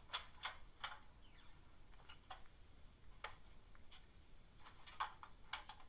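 Faint, irregular clicks, about a dozen, from the sound decoder of a stationary model FS D443 diesel locomotive: switch and relay clicks of its start-up sequence, with no engine running yet.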